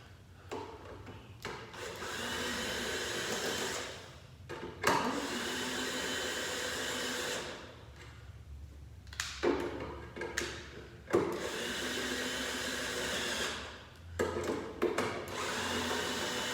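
Cordless power screwdriver or drill driving screws back into the plastic body of a Razor kids' four-wheeler, running in several bursts of two to three seconds with clicks and knocks between them.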